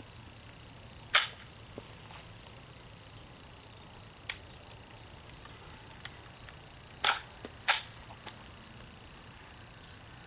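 Sharp metallic clicks of a frozen AR-15 pistol's action being worked and its trigger pulled without the round firing: one click about a second in, a faint one midway and two close together near the end. The firing pin is frozen in place, so each pull gives a click and no shot. A steady high drone of crickets or other insects runs underneath.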